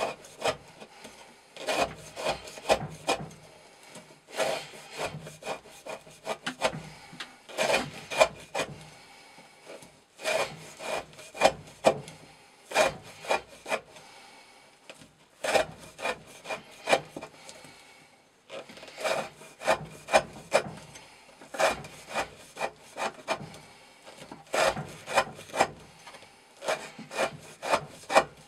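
Chris Reeve Sebenza 21 knife with an S35VN steel blade shaving curls off the edge of a wooden stick: quick scraping strokes in bursts, with short pauses between them. The steady whittling wears the edge down as part of an edge-retention test.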